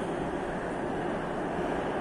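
Metro train running through the underground station, a steady rumble with no distinct knocks or squeals.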